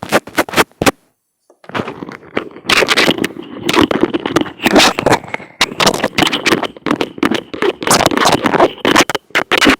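Fingers tapping and rubbing directly on an earphone microphone. Sharp close taps for about a second, a brief silent gap, then continuous loud scratchy rubbing and crackling.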